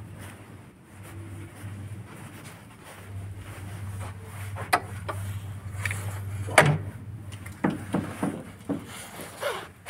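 A door being opened and handled: several sharp clicks and knocks, the loudest a little past the middle and a quick run of them near the end, over a steady low hum.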